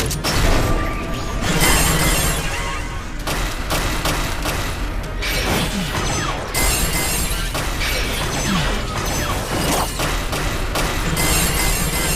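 Dramatic background score mixed with battle sound effects: repeated shattering and crashing impacts that change abruptly every second or two.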